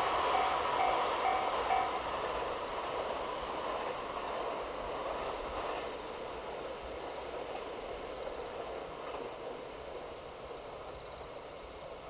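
A JR West 681/683-series limited express electric train runs past and its rumble slowly fades as it draws away. A level-crossing bell rings in an even repeating ding and stops about two seconds in, with a steady high hiss over everything.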